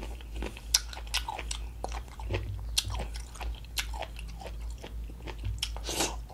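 Crunchy chewing of a whole pickled radish, irregular crisp clicks as the firm outer layer is broken down, with another bite into the radish near the end.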